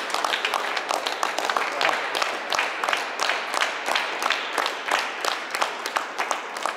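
Light applause from a handful of people clapping, the separate claps distinct, thinning out near the end.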